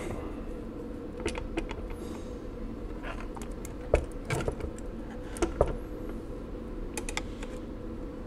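Scattered light metal clicks and knocks as the steel case and keyboard of a 1917 Monroe Model F mechanical calculator are handled and worked with a screwdriver. The loudest knock comes about four seconds in, another pair about a second and a half later. A faint steady hum sits underneath.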